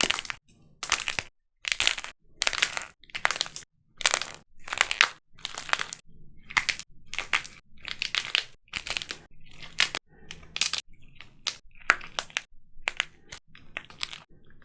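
Dried plaster clay being crushed and cracked apart: a steady run of short, crisp crunches, about one or two a second.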